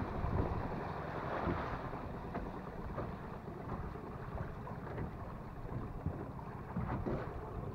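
Wind buffeting the microphone over water washing against a small motorboat's hull, the level falling over the first second or two as the boat slows.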